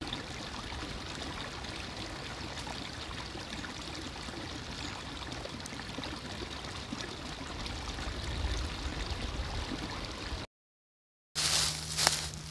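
Steady rushing noise, like flowing water, for about ten seconds. It cuts off abruptly, and after a second of silence a different, louder crackling sound with a low hum begins near the end.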